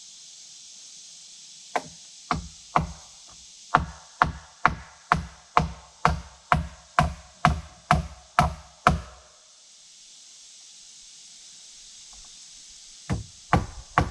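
Hammer driving nails into wooden framing boards: about fifteen steady blows, roughly two a second, then a pause, and the hammering starts again near the end.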